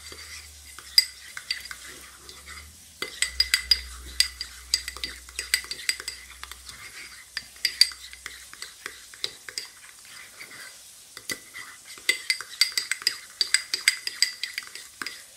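Metal spoon stirring a thick mayonnaise-and-ketchup sauce in a small ceramic bowl, tapping and scraping against the sides in quick runs of clicks with short pauses between.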